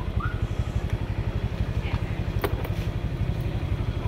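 A motor vehicle engine idling with a steady, rapidly pulsing low throb. A short high chirp sounds near the start and a sharp click about halfway through.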